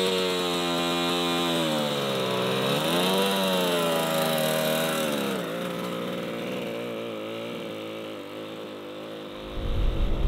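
The 100cc two-stroke twin engine of a 1966 Yamaha YL1 Twin Jet motorcycle running as it is ridden, revving up and down so its buzzing pitch dips and climbs, then growing fainter. Near the end a louder low rumble cuts in abruptly.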